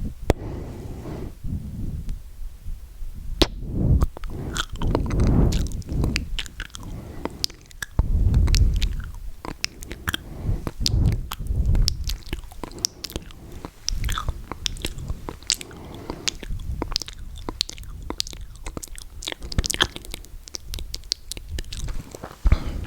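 ASMR mouth sounds made very close to the microphone: a dense run of sharp clicks and pops, over low swells of breath every second or two.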